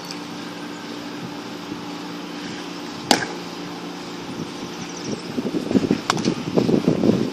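A pitched baseball, a fastball clocked at 85 on the radar gun, pops once into the catcher's mitt about three seconds in. A second, thinner click comes near six seconds, followed by irregular wind and handling rumble on the microphone over a steady low hum.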